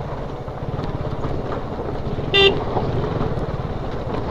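KTM 125 Duke's single-cylinder engine running steadily while riding, with one short horn beep about two and a half seconds in.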